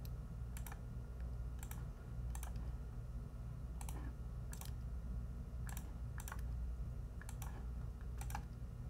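Faint, irregular clicking of a computer mouse and keyboard, about one click a second, as vertices are selected and moved in 3D modelling software, over a steady low hum.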